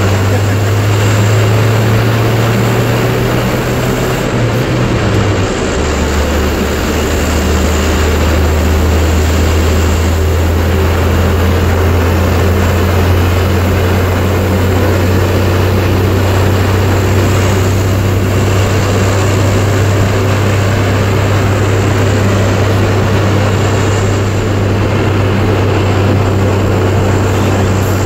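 1968 Chevrolet pickup driving with its added propeller running, a loud steady drone heard from inside the cab. About five seconds in, the low hum drops to a lower pitch and holds there.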